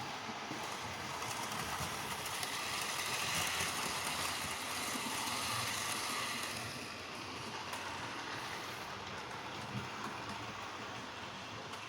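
OO gauge model train, a Bachmann A1 Tornado locomotive hauling wagons, running along the track with a steady whirring and clicking of wheels on rail. It grows louder about a second in and eases off again after about six seconds as it passes close by and moves away.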